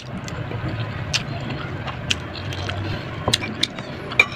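Eating sounds of vegetables being bitten and chewed: sharp crunches and clicks about every half second to a second, over a low steady hum.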